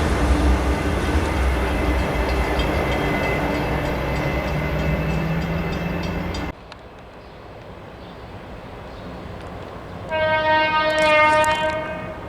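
A train running past close by, a loud rumble with wheel and rail noise, which cuts off abruptly about six and a half seconds in. Near the end a locomotive air horn sounds one blast of about two seconds.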